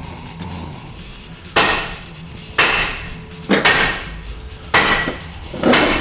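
Hammer blows on metal transmission parts: five sharp strikes about a second apart, each ringing briefly, the last running past the end.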